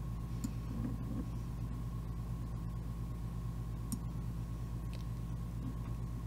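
Steady low electrical hum with a faint steady high tone, and a few soft computer mouse clicks.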